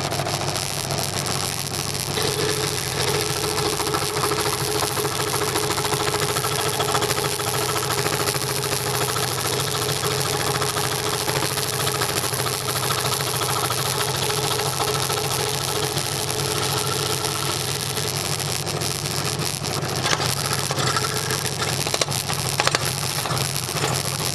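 Scroll saw running steadily, its reciprocating blade cutting through a wooden board.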